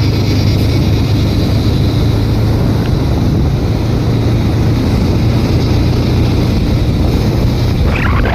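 A moving vehicle running steadily: a constant low engine drone with road and wind noise.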